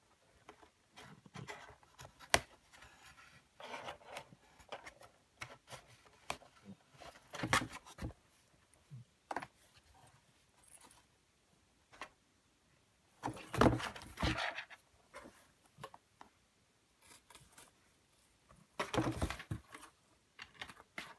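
A cat scrabbling and batting in a cardboard box: claws and paws scraping and tapping the cardboard, and a metal collar tag jingling, in irregular bursts. The bursts are loudest about halfway through and again near the end.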